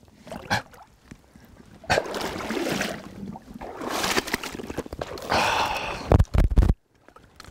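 Shallow water splashing in irregular bursts as a person wades quickly through it, with a few dull thumps near the end.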